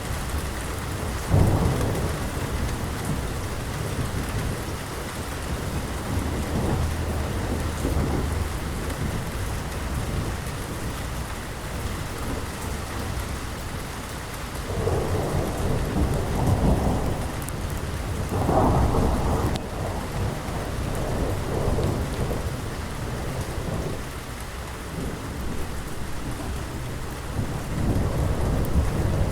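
Thunderstorm: steady rain falling with rolling thunder, a sharp crack about a second and a half in and heavier rumbles past the middle.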